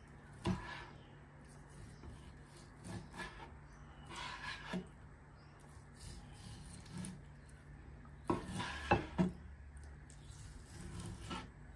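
Knife blade drawing through raw beef topside and scraping on a plastic cutting board while the meat is cut into thin slices: soft, scraping strokes, spaced irregularly a few seconds apart.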